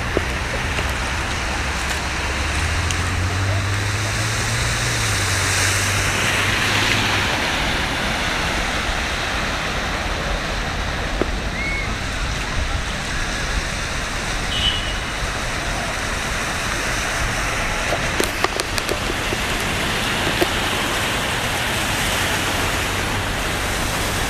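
Cars driving through a flooded street, water sloshing and splashing around their wheels in a steady rush, with car engines running. A low engine hum stands out for the first several seconds.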